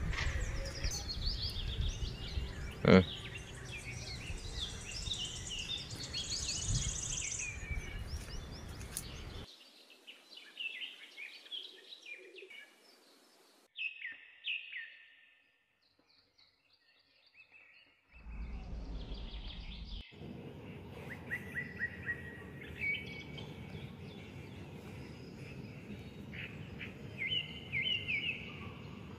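Small birds chirping and calling over steady outdoor background noise, with one sharp knock about three seconds in. The sound drops to near silence for a few seconds around the middle.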